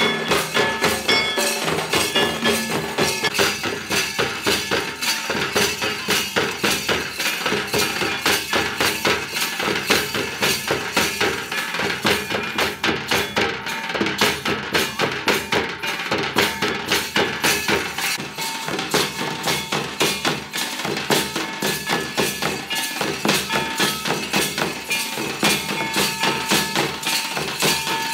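Traditional Santal dance drumming: a string-laced barrel drum (tumdak') played by hand together with a stick-beaten drum, in a fast, steady rhythm of several strokes a second.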